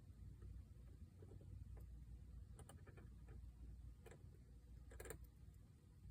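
Faint, irregular metallic clicks of a lock pick working the pins of a SEPA 5000 dimple padlock under tension, a small cluster about five seconds in being the loudest.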